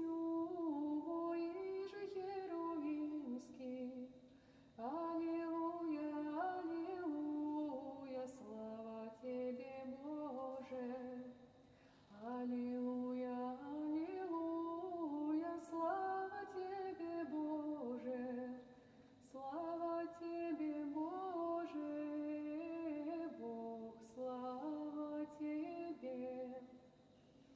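A woman singing unaccompanied in a Russian Orthodox folk-song style, a single voice in four long melodic phrases with short breath pauses between them.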